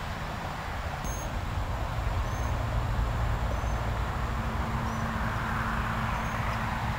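Steady outdoor background: a low rumble with a hiss over it, and a faint, short, high chirp repeating about once a second. A steady low hum joins about four seconds in.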